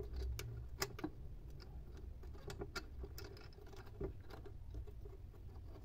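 Irregular small clicks and taps of a nut being threaded by hand onto a bolt on the mounting bracket of a sewing-machine servo motor, with hands handling the motor housing.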